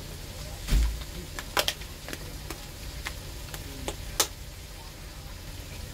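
Thump and a string of sharp clicks and taps from a plastic seasoning shaker being handled and its red cap worked open, over a low steady background hum.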